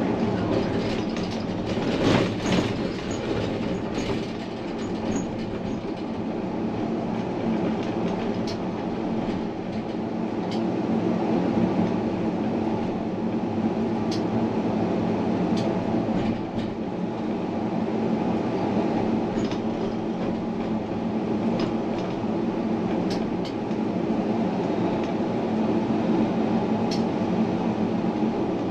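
Tram running along its track: a steady rumble and hum of motors and wheels, with occasional sharp clicks.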